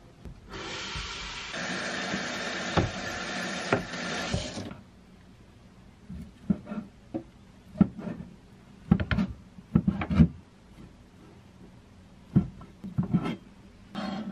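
A loud, steady rushing hiss for about four seconds, then a knife chopping cooked chicken breast on a plastic cutting board: separate knocks, some alone and some in quick clusters.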